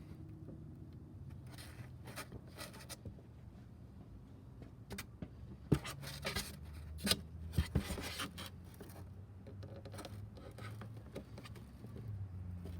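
Metal hand tools clinking and scraping against engine parts, with a few sharp knocks about six to eight seconds in, over a low steady hum.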